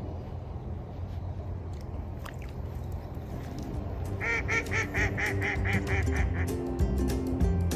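A run of about ten quick, evenly spaced honking calls, typical of waterfowl, lasting a couple of seconds, over a steady low rumble; background music comes in near the end.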